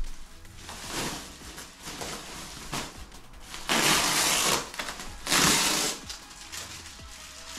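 Bubble-wrap and plastic packaging rustling and crinkling as a wrapped costume piece is handled, with two louder bursts of crinkling in the middle.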